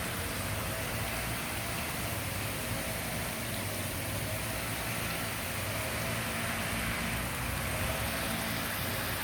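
Water fountain splashing and falling steadily, with a faint low hum underneath.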